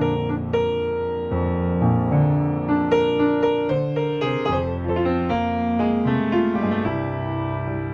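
Background solo piano music: a gentle melody of separate struck notes over held bass notes.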